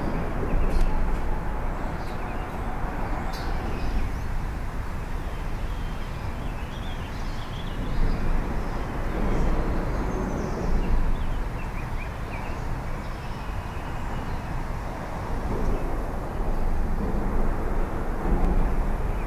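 Steady low rumble of traffic on the bridge overhead, swelling about eight seconds in and again near the end, with a few short bird chirps above it.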